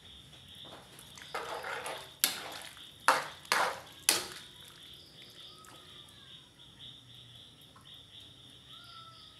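A metal spatula clinks sharply against a large aluminium wok four times in quick succession, after a brief scraping sound, over a steady high hiss.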